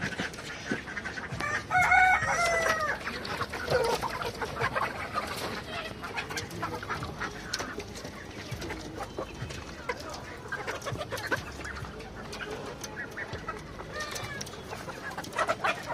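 A crowded flock of chickens clucking and calling, with a rooster crowing once about two seconds in.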